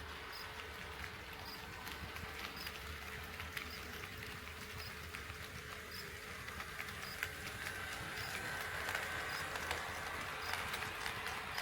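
HO scale model train running on KATO Unitrack, with irregular clicking of wheels over the rail joints over a steady hum. It grows louder and brighter from about two-thirds of the way in as the train draws nearer.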